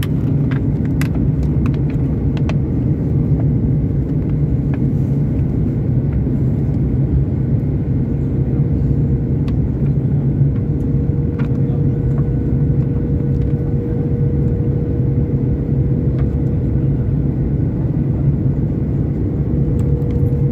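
Steady jet airliner cabin noise on approach: engine and airflow drone heard from a window seat over the wing engine, a low rumble with a thin steady hum on top.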